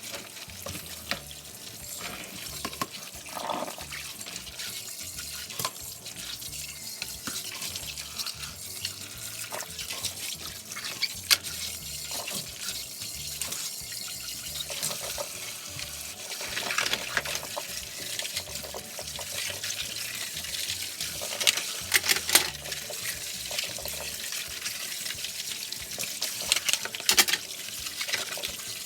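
Kitchen tap running into the sink during washing-up, with sharp clinks and knocks scattered through it, the loudest about a third of the way in and in clusters later on.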